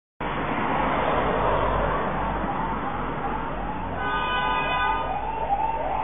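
Siren on a speeding Mahindra Scorpio SUV, blaring in quick, repeated up-and-down sweeps over the noise of the moving vehicle.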